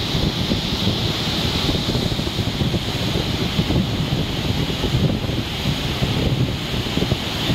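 Floodwater rushing through the open spillway gates of a dam, a steady churning rush of water, with wind buffeting the microphone.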